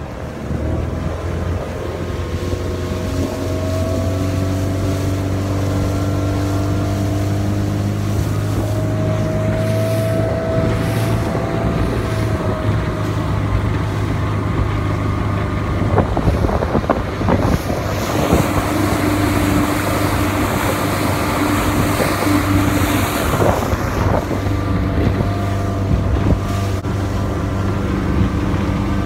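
Monterey 180 motorboat's engine running steadily while under way, with wind buffeting the microphone and the rush of water along the hull. The wind and water noise grows louder and rougher, with sharp slaps, from a little past the middle until near the end.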